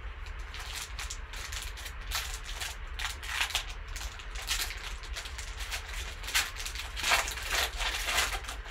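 Foil wrapper of a Panini XR football card pack crinkling as gloved hands tear it open and peel it off the cards: a run of crackling rustles, loudest near the end.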